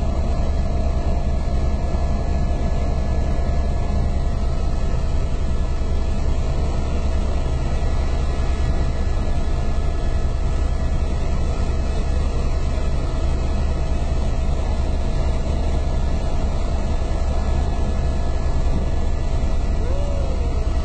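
Helicopter engine and rotor noise heard from inside the cabin: a steady drone with a strong low rumble and a faint constant whine.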